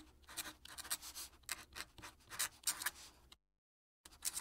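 Fountain pen nib scratching across paper while writing in cursive, a run of short irregular strokes. It stops dead for about half a second a little past three seconds in, then starts again.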